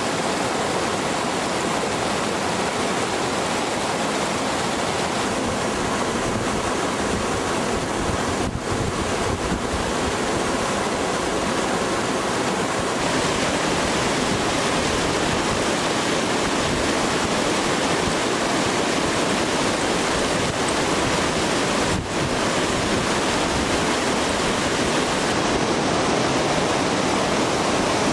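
Large glacial meltwater river rushing and churning over boulders: a loud, steady wash of water noise.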